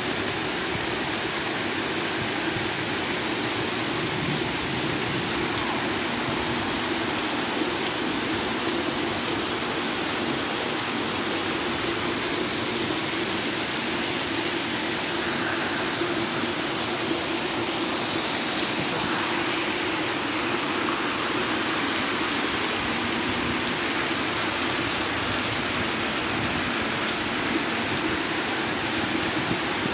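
Heavy rain pouring down steadily onto a flooded paved lane, an even, unbroken hiss of falling and splashing water.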